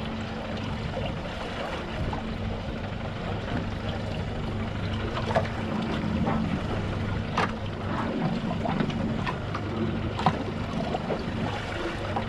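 Fishing boat's engine running steadily, a low even hum, with three short sharp knocks in the second half.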